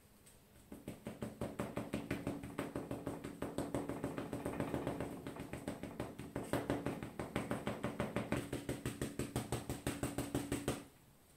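Rapid, repeated tapping of a crumpled ball of aluminium foil dabbing paint onto paper on a board, about four to five taps a second. It starts just under a second in and stops about half a second before the end.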